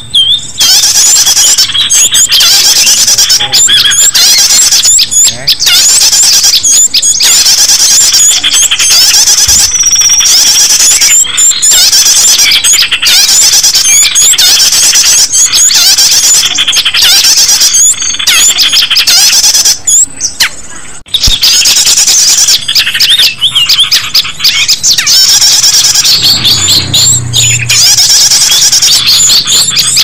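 Bird-lure recording: a dense, loud chorus of many small songbirds chirping, squeaking and twittering at once in rapid high-pitched calls, briefly dropping away about two-thirds of the way through.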